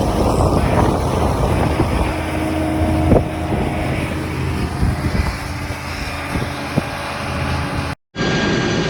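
Combine harvester running steadily, a low engine drone under machinery noise, with an occasional click; the sound cuts off for an instant near the end and resumes as a similar steady drone.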